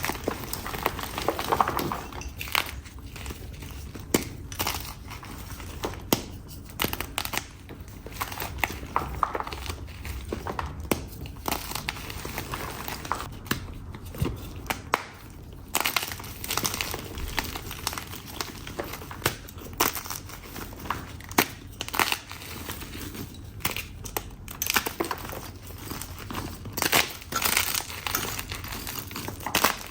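Blocks of powdery chalk being crushed and crumbled by hand, a continuous run of irregular crisp crunches and crumbling.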